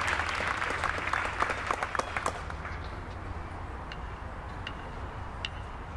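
Stadium crowd applause dying away over the first two or three seconds, leaving a hush broken by a few stray claps.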